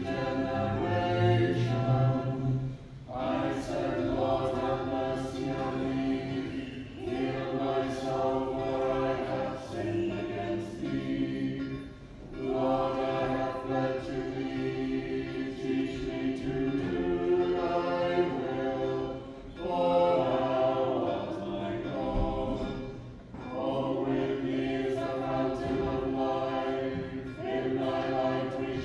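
A small choir singing Orthodox liturgical chant a cappella, in phrases of a few seconds with short breaks between them.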